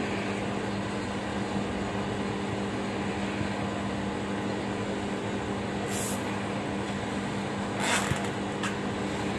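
Steady machine hum, with a short high-pitched click about six seconds in and a brief zipping rasp around eight seconds in, typical of a plastic cable tie being pulled tight.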